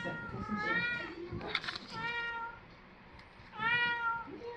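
Domestic cat meowing repeatedly as she plays with her toys: three drawn-out calls, each rising then falling in pitch, about a second and a half apart. There is a brief scratchy noise between the first two.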